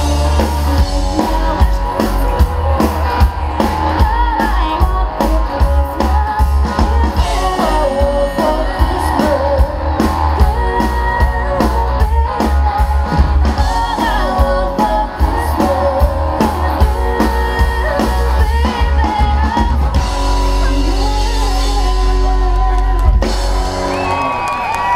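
Live amplified rock-style band: a woman singing into a microphone over drums and electric guitar. For the last few seconds the low end settles onto one held note.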